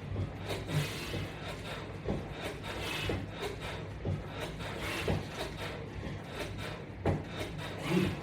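Knocks and rubbing from a workout bench and wall-mounted resistance-band attachment during pull-down crunch reps, coming about once a second.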